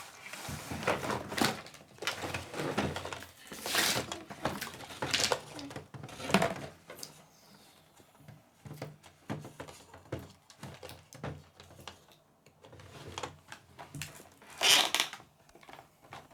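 Plastic toy cash register parts and their packaging being handled: irregular plastic knocks and clatters with softer rustling, the loudest knocks about four, five and six seconds in and again near the end.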